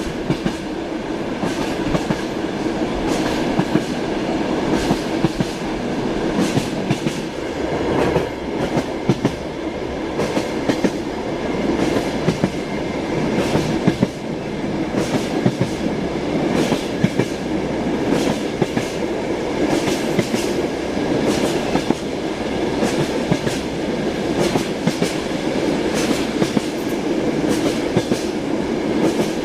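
Railway carriage wheels clicking over rail joints, repeated clicks over the steady rumble of a train in motion, heard from inside the carriage.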